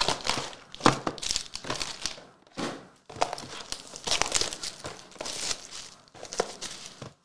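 Trading card packaging being handled: the plastic and foil wrappers of Panini Revolution basketball card packs and hobby box crinkling and tearing in short, irregular bursts.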